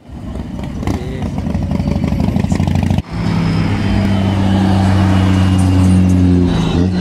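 Vehicle engines running. A passing vehicle's engine grows louder over the first three seconds, then after a sudden break a loud, steady low engine drone holds until near the end.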